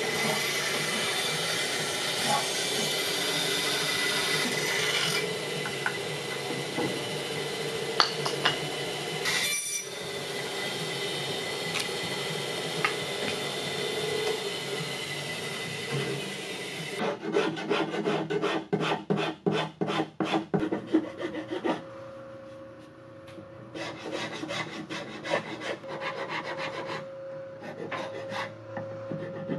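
Band saw cutting through thick reclaimed white pine, a steady run with the blade hissing in the wood. About 17 seconds in this gives way to a hand file rasping across the pine in quick back-and-forth strokes, about three a second, with a short pause partway through.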